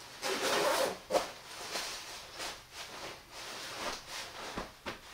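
Clothing rustling in short, irregular bursts as a padded jacket, hood and face covering are adjusted, loudest in the first second.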